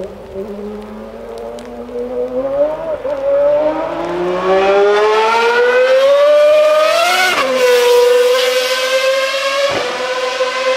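1995 Ferrari 412 T2 Formula 1 car's 3.0-litre V12 accelerating as it approaches, its high engine note climbing steadily and getting louder. The pitch dips briefly about three seconds in, rises to a peak and drops sharply about seven seconds in, then climbs slowly again.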